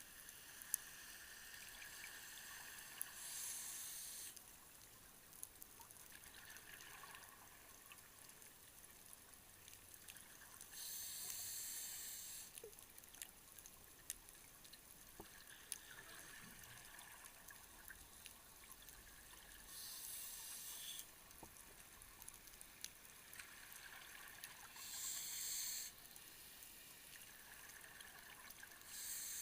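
Faint underwater breathing of a scuba diver: regulator exhaust bubbles rush past in bursts a second or two long, every five to nine seconds. Faint scattered clicks sound in between.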